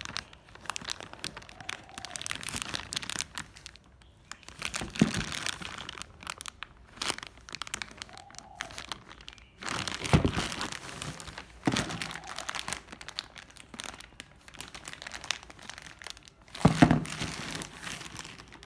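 Clear plastic parts bag crinkling and rustling as it is handled and turned over, with a few louder bumps along the way.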